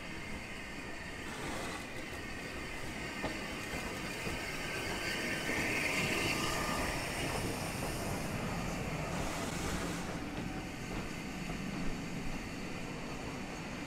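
Southern Railway Schools-class 4-4-0 steam locomotive No. 926 Repton and its carriages rolling along a station platform. The sound swells to its loudest, with a hiss, as the engine passes about six seconds in, then eases off.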